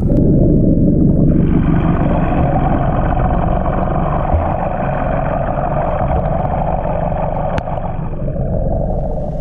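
Steady, muffled drone of a boat engine heard underwater, with a brighter, higher layer that comes in abruptly about a second in and fades near the end.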